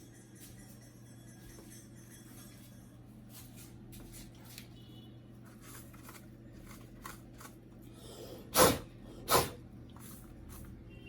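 Scattered light clicks and small knocks of printer fuser-unit parts being handled, with two louder knocks a little under a second apart near the end.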